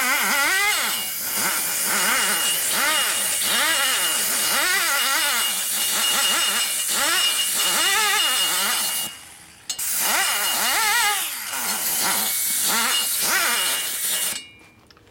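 High-speed die grinder cutting in the port of an aluminium Harley Twin Cam cylinder head, its whine dipping and recovering over and over as it is pressed into the metal. It stops about nine seconds in, starts again a moment later and stops near the end.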